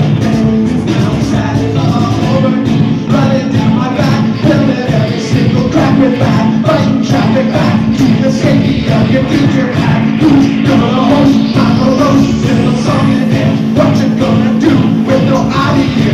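Rock band playing live and loud: distorted electric guitars, bass guitar and a steady driving drum beat, filmed from the audience.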